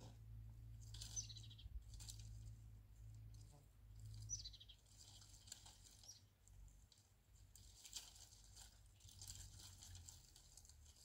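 Faint bird chirps, with two short calls that fall in pitch, over a low steady rumble and scattered light rustling.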